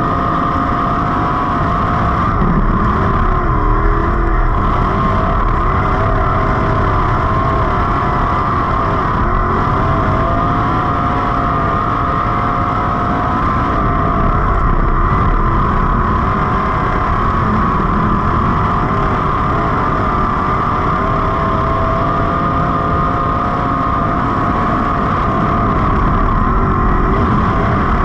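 A 305 sprint car's small-block V8 running hard at high revs, heard from the cockpit. The pitch stays steady apart from small rises and falls.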